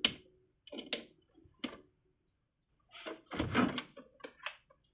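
Small plastic clicks and knocks as a battery-powered miniature toy kitchen is handled and tried out, with a longer bout of rattling handling about three seconds in.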